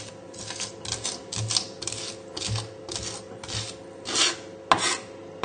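Flat of a chef's knife scraping garlic and coarse sea salt across a wooden chopping board in repeated strokes, about two a second, with a sharper click near the end. The salt acts as an abrasive, grinding the garlic into a paste.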